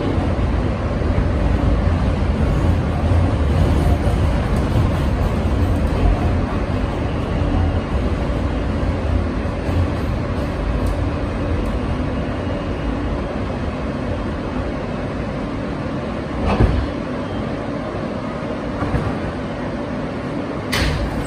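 Inside a moving subway car: steady rumble of wheels on rails and running gear, easing down as the train slows for a station. A thump comes about three quarters of the way through and a sharp knock near the end.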